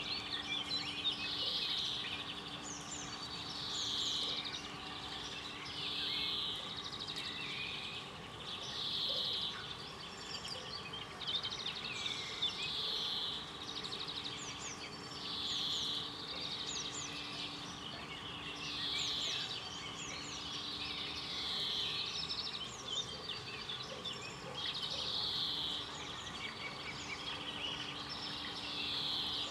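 Birds singing, with a bright phrase coming back every two to three seconds among quicker chirps, over a faint steady hum.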